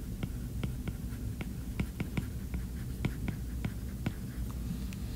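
Stylus tapping on a tablet screen while handwriting a word: an irregular run of light clicks, several a second, over a low steady room hum.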